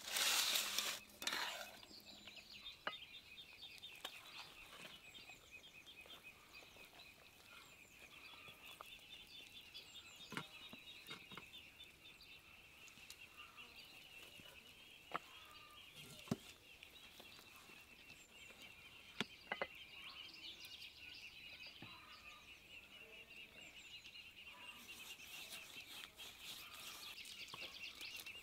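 A metal fork scrapes and clatters against an enamel bowl while mixing rice, the loudest sounds, in the first couple of seconds. After that a steady, high, fast-pulsing animal trill runs in the background, with scattered soft clicks and taps from hands handling raw lamb ribs.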